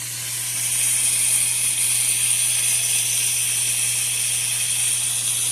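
Chicken sizzling steadily in a hot pan, an even high hiss, over a low steady hum.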